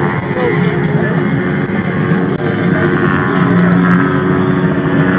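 Loud rock music with electric guitar, with a steady din of engines underneath.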